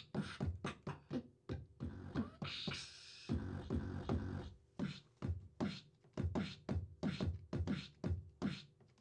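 Beatbox vocal-percussion samples (kicks, snares, a shaker) triggered one by one from a Native Instruments Maschine drum kit, roughly three hits a second. Between about two and four and a half seconds in they give way to a longer hissy sound and then a dense low stretch.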